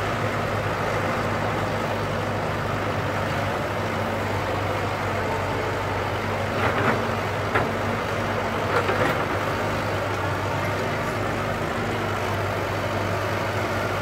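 Caterpillar hydraulic excavator's diesel engine running steadily as it works, with a few short clanks and rattles a little past the middle.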